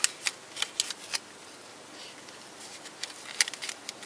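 Duct tape being pressed around a label on an engine wiring harness: short crackles and clicks, a cluster in the first second and another about three seconds in.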